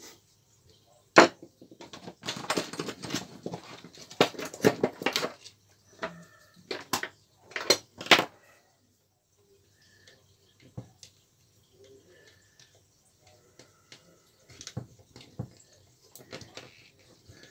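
Handling noise from work on an opened hammer drill: sharp clicks, taps and small clatters of tools against the housing and its parts. They come thick and fast for most of the first half, then thin out to a few faint taps.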